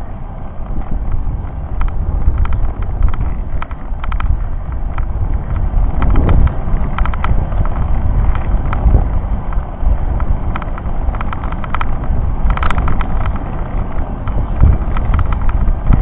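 Wind buffeting the microphone of a bicycle-mounted camera on a climb, with steady road rumble from riding over cracked asphalt. Irregular clicks and rattles come through, some in quick clusters.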